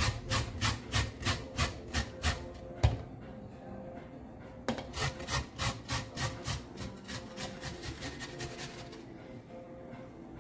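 A carrot being grated on a grater: quick back-and-forth scraping strokes, about three a second, in two runs with a short pause between them, the second fading out near the end.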